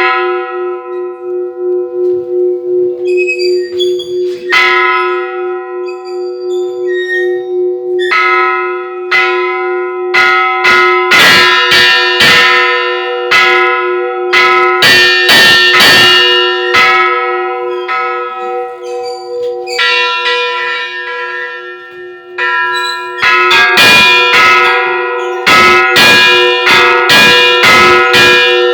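Church bells ringing for Easter: a low bell tone hangs steadily underneath while smaller bells are struck in quick flurries, thickest in the middle and again near the end.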